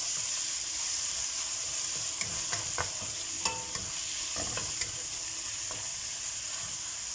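Diced chicken sizzling in hot oil in a nonstick frying pan, stirred with a wooden spatula that scrapes and clicks against the pan now and then over a steady hiss.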